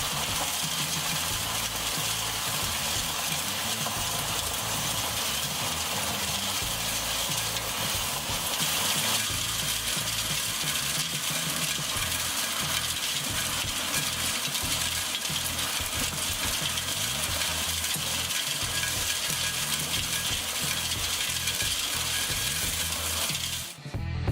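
High-pressure water jet from a hydro-excavation nozzle blasting into frozen gravel: a steady, dense hiss with constant fine crackling from the grit, slightly louder about nine seconds in.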